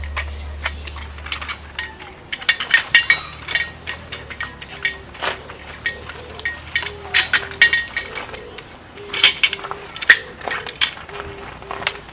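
Metal dishes, pots and utensils being handled, giving many sharp, irregular clinks and clicks.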